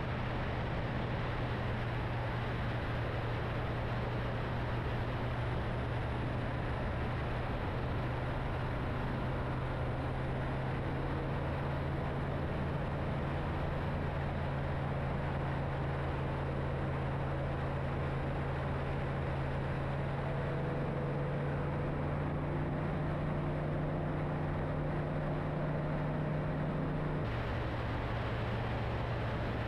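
Kitfox STi light aircraft's engine and propeller droning steadily in cruise, heard with wind noise from on board. The tone shifts abruptly near the end.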